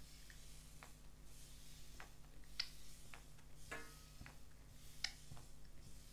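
Plastic squeeze bottle of pancake batter being squeezed, its nozzle giving about five faint sharp clicks and one short squelchy spurt a little past halfway.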